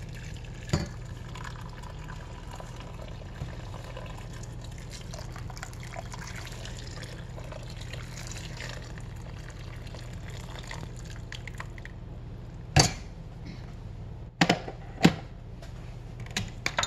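Water poured from an electric kettle into a pot of soy sauce and vegetables, a steady splashing fill lasting about twelve seconds. Near the end come a few sharp knocks.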